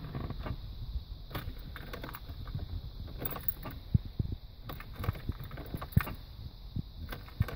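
Several sharp clunks from a VW Bora 1.9 TDI (ALH engine) as the key is turned, the loudest about four and six seconds in, with no cranking rhythm: the starter only clunks and does not turn the engine over. The owner puts this down to the ignition switch, the flywheel ring gear or the replacement starter motor.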